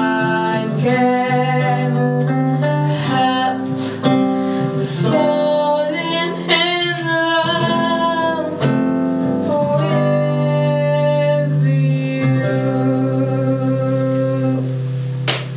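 A woman singing a slow song into a microphone over guitar accompaniment, holding long notes as the song closes. Applause breaks out at the very end.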